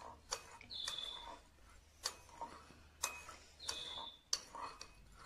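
Spoon clinking and scraping against a ceramic bowl while stirring, an irregular clicking about once a second with a few short, high ringing notes.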